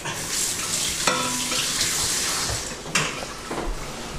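Food sizzling in a hot frying pan, a steady hiss, with a sharp clink about three seconds in.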